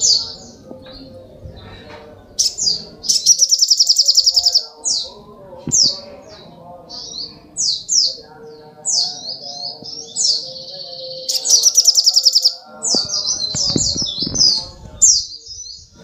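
Olive-backed sunbird singing: a rapid string of high chirps and short sweeping notes, broken by two long fast rattling trills, one about three seconds in and another about eleven seconds in.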